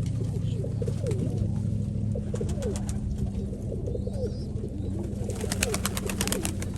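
Several Nikolaev pigeons cooing, with many short, overlapping coos, over a steady low hum. A quick run of sharp clicks comes about five seconds in.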